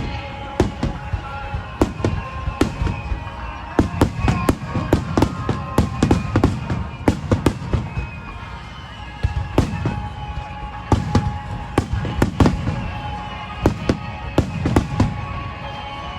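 Aerial fireworks bursting in rapid, uneven volleys of sharp bangs with a low rumble, heaviest around four to six seconds in and again from about eleven to thirteen seconds. Music with held notes plays underneath.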